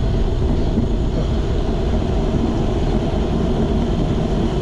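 Steady low wind rumble and rush on the microphone of a camera riding on a bicycle at about 22 mph.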